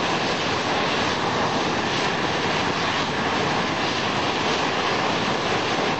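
Steady, unbroken roar of a burning well blowout jetting up from a wellhead, mixed with the hiss of high-pressure fire hoses spraying water.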